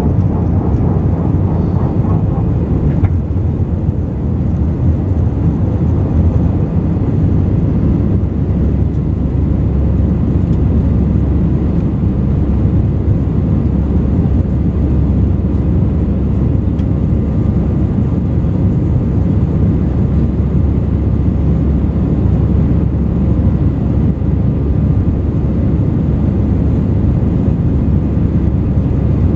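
Airbus A320 engines and rushing air heard from inside the passenger cabin during the climb after take-off: a steady, deep cabin roar without change.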